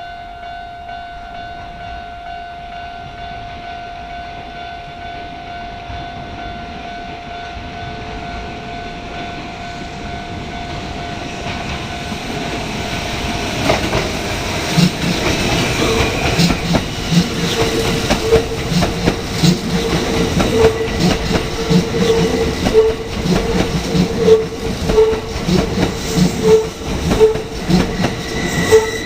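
Kintetsu Nara Line electric train approaching and passing over a level crossing. It grows louder from about a third of the way in, and for the second half its wheels clatter rhythmically over the rail joints. A steady tone sounds through the first half.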